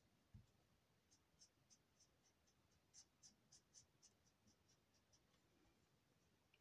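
Faint, quick strokes of a Twinmarker alcohol marker's nib on paper, about four a second, starting about a second in and stopping about five seconds in. One soft low knock comes just before the strokes begin.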